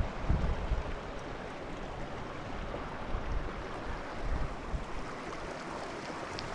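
Steady rushing of a small mountain creek, with a little low wind rumble on the microphone at the start.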